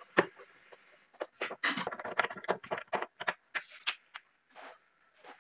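Screwdriver working the adjustment screw of a steel concealed cup hinge on a cabinet door: a run of irregular short metal clicks and taps, densest in the middle.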